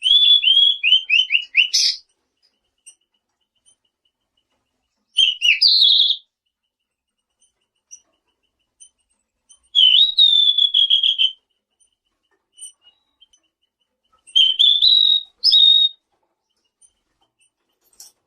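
Selendang biru (tledekan biru) songbird singing: four short phrases of quick, trilled whistles, each a second or two long, coming about every four to five seconds with faint high chips between.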